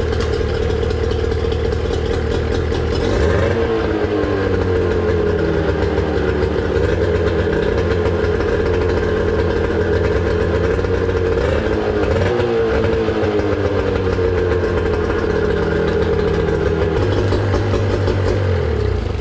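Mercury 25 hp two-stroke outboard running warm on flush muffs, shifted into gear so the propeller spins and splashes water. Its engine speed shifts up and down around four seconds in and again around twelve seconds in.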